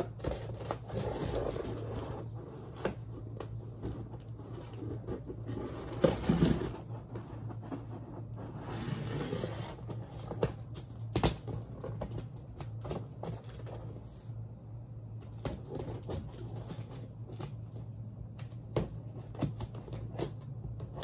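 A tall cardboard banjo shipping box being opened and handled: scraping and tearing of cardboard and packing tape in several short spells, with many scattered clicks and knocks, over a steady low hum.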